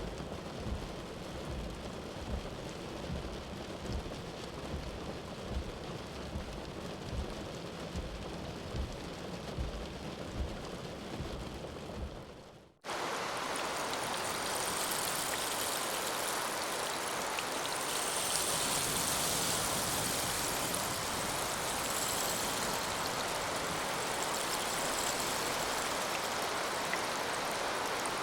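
Rain sound effects in two loops: first a low, rumbling rain with soft pulses that fades out about twelve seconds in, then after a brief gap a steady, brighter hiss of rain starts suddenly.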